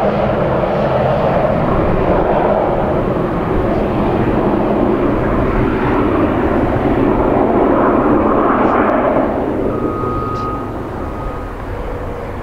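de Havilland Canada DHC-4 Caribou's two Pratt & Whitney R-2000 radial piston engines droning as it climbs away with wheels down, the sound fading over the last few seconds.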